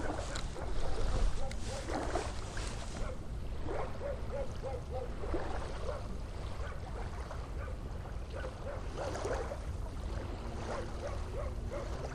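Wind rumbling on the microphone over small waves lapping at the shore, with faint short chirping sounds in a few quick runs.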